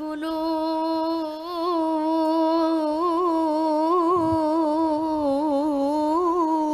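A boy's solo voice sings one long held note in Arabic shalawat, decorated with wavering melismatic turns around a steady pitch.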